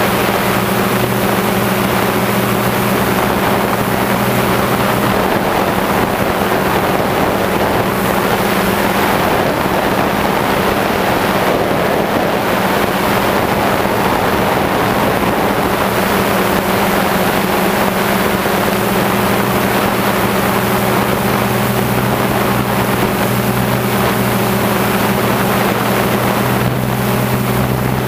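An engine droning steadily at a constant pitch, with wind rushing over the microphone.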